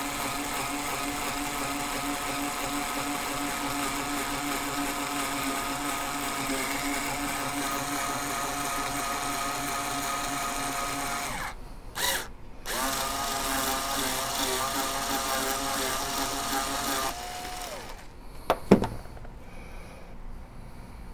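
Power drill spinning the neck-turning cutter on a Hornady case trimmer, shaving the neck of a brass rifle case slowly with a steady whine. It stops briefly about twelve seconds in, runs again, then winds down a few seconds before the end.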